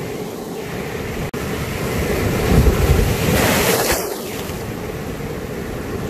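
Ocean surf washing over and around shoreline rocks, with a wave breaking that swells louder about two to four seconds in before easing back.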